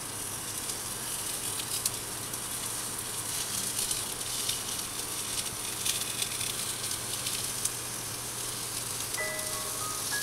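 Oil sizzling and crackling in a hot tawa as a rice-flour roti (akki rotti) is laid onto it and pressed down. Light mallet-percussion music comes in near the end.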